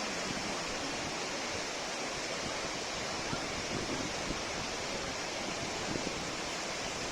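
Steady rush of flowing water, an even hiss with no pauses or changes.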